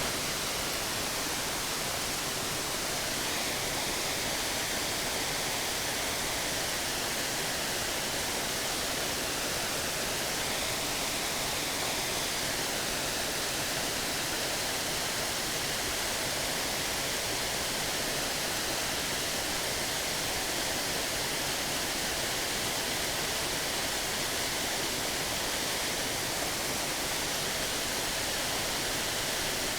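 Waterfall running full and steady, a dense even rush of falling water, swollen by heavy rain.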